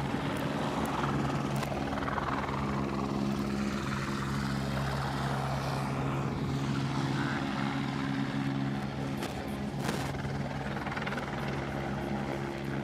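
Helicopter running with a steady droning hum.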